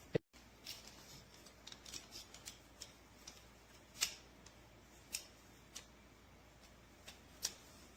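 Faint, scattered clicks and light handling knocks from a folding laptop stand being unfolded and its parts moved into position, with about half a dozen sharp clicks, the clearest about four seconds in.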